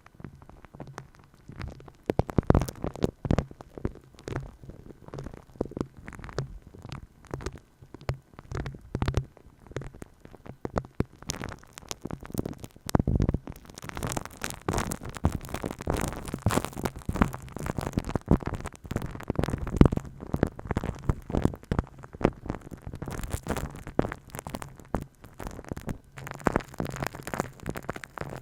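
Fingers tapping and rubbing on an ASMR microphone: a dense, irregular run of soft taps and scratchy rubs, growing hissier about halfway through.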